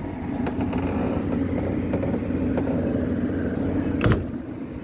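Doosan 3-ton forklift engine idling steadily, with one sharp knock about four seconds in.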